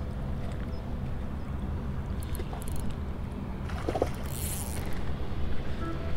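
Steady low rumble of wind on the microphone, with a brief hiss about four seconds in.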